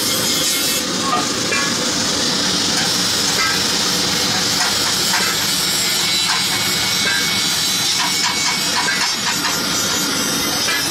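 Steady hissing noise with a dense rumble beneath it and a few faint knocks.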